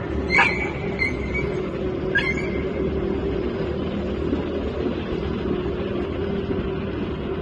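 Three short, high yelps from a small dog being kicked, in the first two and a half seconds, over a steady low rumble of city traffic with a hum.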